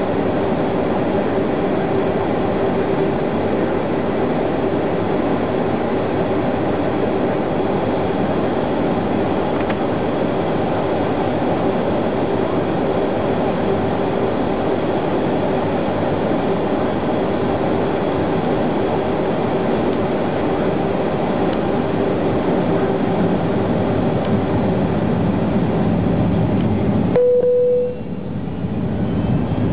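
Steady cabin noise inside a taxiing airliner: a continuous rush with a steady hum. Near the end it drops abruptly to a lower, different noise.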